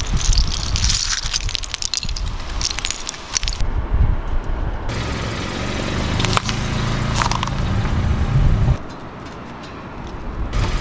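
Loose plastic pieces of a crushed Rubik's cube clattering and clicking as a hand stirs them on asphalt. Then a car rolling slowly on the road, its low engine hum steady for about four seconds before it stops suddenly.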